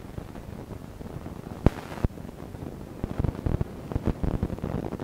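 Low rumbling noise on a poor built-in microphone, with two sharp clicks a little after one and a half seconds in and uneven crackling from about three seconds on.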